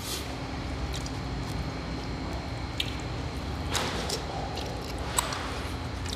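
Eating sounds from a forkful of chili spaghetti: a plastic fork scraping in a paper food boat with a few soft clicks, and a wet mouthful taken and chewed about four seconds in. A steady low hum runs underneath.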